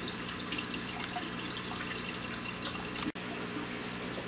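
Aquarium filter water trickling and dripping over a steady low hum, with a brief dropout about three seconds in.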